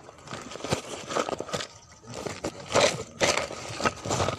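Handling noise: irregular scraping and crackling as the camera is rubbed, moved and set down on rough rock, louder about halfway through.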